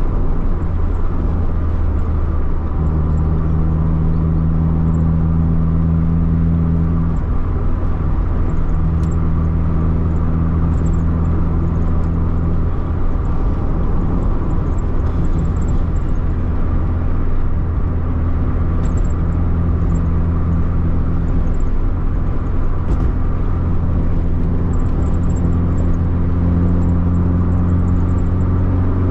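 Motor vehicle engine running at a steady cruising speed, heard from a camera mounted on the vehicle. It is a steady low drone whose pitch rises slightly near the end.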